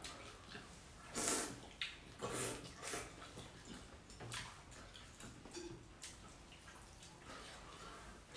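People eating noodle soup: short wet slurps of noodles and broth, the strongest in the first three seconds and fainter after, with a few light clicks of spoons on ceramic bowls.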